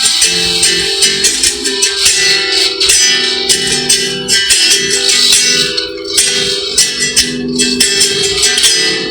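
Music: a sample-based composition with plucked guitar and a steady percussive beat.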